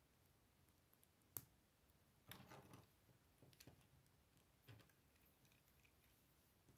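Plastic Lego bricks clicking as they are handled and pressed together: a sharp click about a second and a half in, a short rattle of clicks a little later, then a few scattered lighter clicks.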